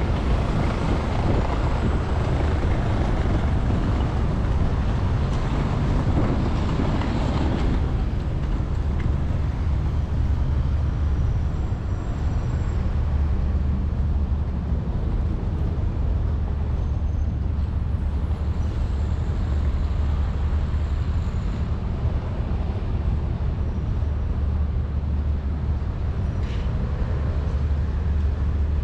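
Road traffic with a steady low rumble of engines and tyres. A louder vehicle rushes past during the first several seconds and fades about eight seconds in.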